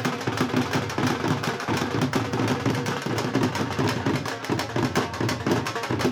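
Dhol drum beaten in a fast, driving rhythm of dense, even strokes.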